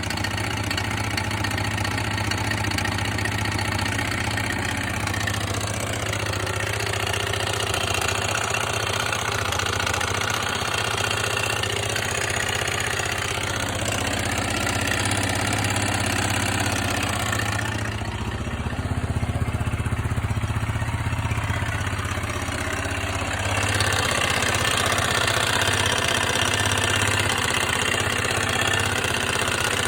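Yamaha XT/TT600 single-cylinder four-stroke engine running steadily at idle or fast idle. Its sound changes for several seconds past the middle, then it runs a little louder near the end.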